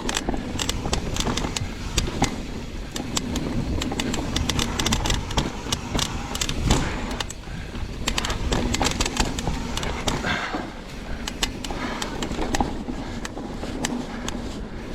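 Trek Remedy mountain bike descending a rough downhill trail: tyres rumbling over dirt and wind buffeting the microphone, with constant rapid clicks and rattles of trail chatter from small bumps and drops.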